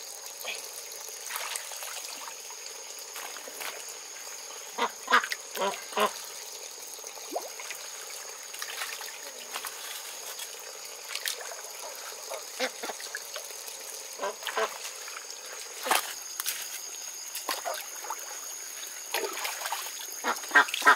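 Domestic ducks quacking in short calls, several in a row about five seconds in and again near the end, over a steady high-pitched hum.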